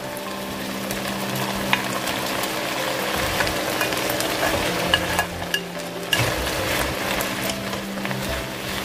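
Squid, onion and garlic scapes sizzling as they stir-fry in an oiled frying pan, with a few sharp knocks as the vegetables are tipped in and stirred with a wooden spatula.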